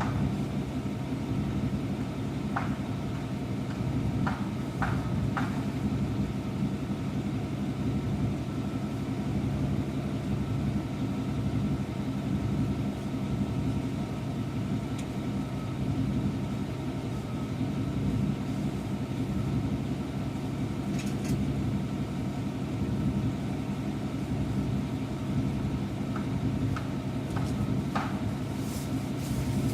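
Steady engine and road rumble of a truck on the move, with a few light clicks and rattles.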